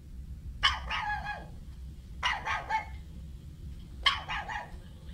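Puppy barking: three short bursts of yapping barks, about a second and a half apart.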